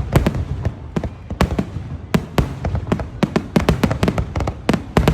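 Fireworks going off in a rapid, irregular volley of sharp bangs and crackles, several a second, over a constant low rumble.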